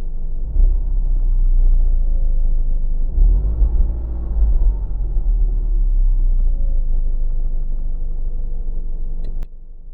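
A 2017 Ford Mustang's 2.3 L turbocharged EcoBoost four-cylinder engine is revved. Its pitch rises about three seconds in and eases back down, then the sound cuts off abruptly near the end.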